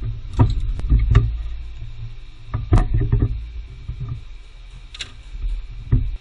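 Sharp metallic knocks and clanks of hand tools on car parts, seven or so at uneven intervals, over a low steady rumble that cuts off suddenly at the end.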